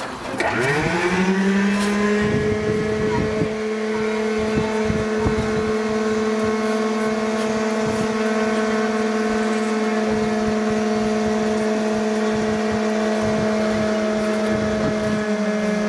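A machine whine that climbs quickly in pitch over the first second, then holds a steady pitch, and starts to wind down near the end.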